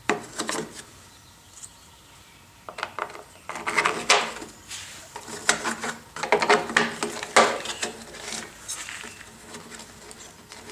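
Hard plastic air filter cover being fitted and pressed onto a Briggs & Stratton Classic lawn mower engine: clusters of clicks, knocks and plastic rubbing.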